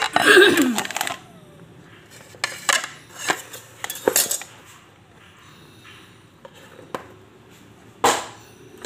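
Dishes and cutlery clattering on a tabletop as a plate, a plastic bowl and a kitchen knife are handled: separate knocks and clinks, the loudest cluster right at the start and another strong knock about eight seconds in.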